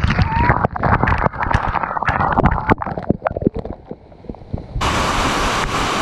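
Waterfall water splashing close against the camera: irregular splats and drips, muffled with little treble. About five seconds in it cuts suddenly to the steady rush of the waterfall.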